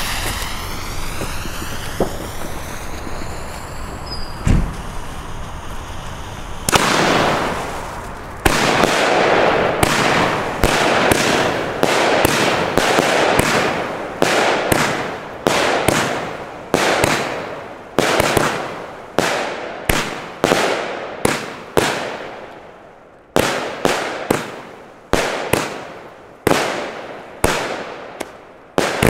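Röder Billich & Willich No. 5 firework battery going off: the lit fuse hisses and sparks for several seconds, then the tubes fire one after another in a long series of sharp shots, about one every two-thirds of a second, each trailing away into the next.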